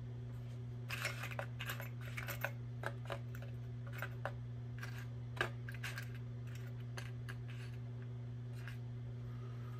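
Small metal pistol parts clicking and clinking as they are handled and set down: a string of light clicks from about a second in, the sharpest about five seconds in, tailing off near the end. A steady low hum runs underneath.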